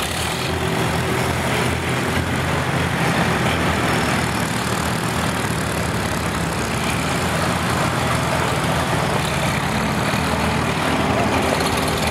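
Antique farm tractor engines running at a slow, steady pace as tractors roll past one after another, including a red Farmall, giving a steady low engine note.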